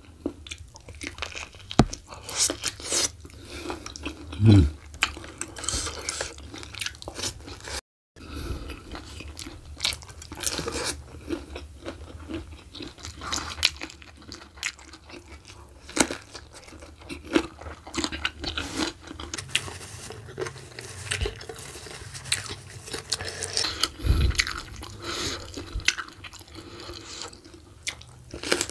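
Close-up chewing and biting of a person eating braised beef oxtail with his hands, then raw vegetables, with many sharp crunches among the chewing. The sound cuts out for a moment about eight seconds in.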